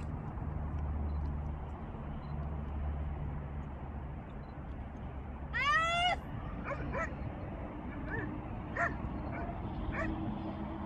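A high-pitched animal cry: one loud call of about half a second that slides in pitch a little past halfway, then several shorter, fainter cries, over a steady low hum.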